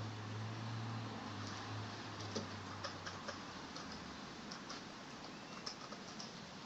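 Faint room noise: a low hum that fades out about three to four seconds in, with scattered light ticks.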